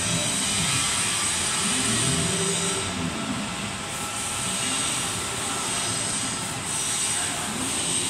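Spindle of a 5-axis CNC router milling a wooden ball, running with a steady high whine. The machine's axis drive motors whine lower underneath, rising and falling in pitch every few seconds as the head moves.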